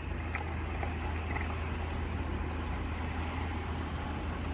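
Steady low rumble and hiss inside a van cabin, with a few faint clicks from someone chewing food.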